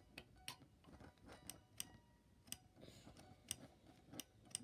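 Faint, irregular clicks and taps, about one or two a second, from fingers handling a guitar's headstock and turning its metal tuning pegs.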